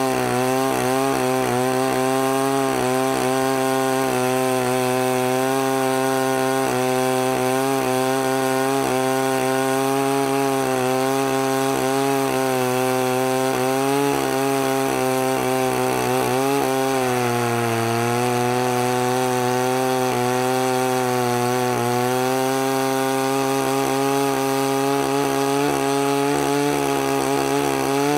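Two-stroke chainsaw with an extra-long bar running at full throttle, milling lengthwise through a eucalyptus hardwood log along a guide rail, with a chain whose teeth are filed down to their minimum. The engine note holds steady, dips briefly about two-thirds of the way through as the saw is loaded, then picks back up.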